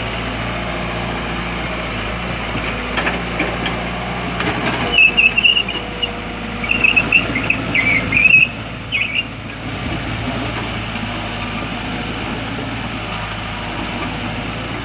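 Heavy diesel construction machinery running steadily. About five seconds in comes a run of high-pitched squeals, louder than the engine, lasting about four seconds, then the steady running continues.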